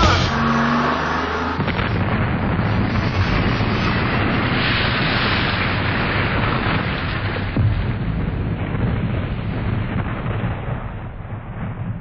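Long rumbling, explosion-like noise with no clear pitch, sustained after the heavy-metal song stops and slowly fading out.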